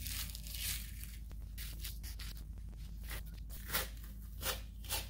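Membrane being peeled off the bone side of a whole pork spare rib rack: a soft, sticky tearing in a run of short pulls, two of them a little louder near the end. A steady low hum runs underneath.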